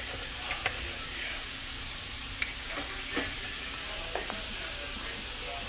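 Chicken breasts and sliced red onions sizzling on an electric griddle: a steady hiss broken by a few sharp pops.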